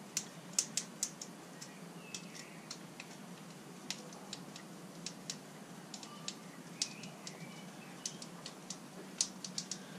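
Irregular small sharp clicks and ticks of a screwdriver working the terminal screws and plastic housing of a caravan hook-up lead's plug, a few loud ones near the start and near the end.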